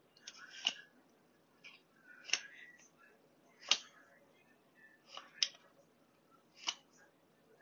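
Trading cards being flicked one at a time from the front to the back of a hand-held stack, each card giving a short sharp snap: five snaps about every second and a half, with faint card rustling between.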